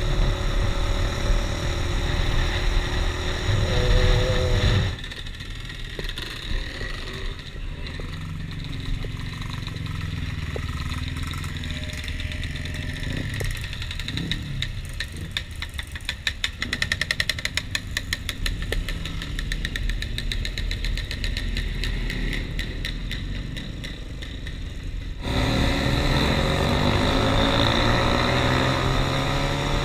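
Yamaha Y15 motorcycle ridden on the road with engine and wind noise, then stopped for about twenty seconds with engine sound at idle, a brief rev about halfway, and a run of fast even ticking a little later. It pulls away and the riding sound returns near the end.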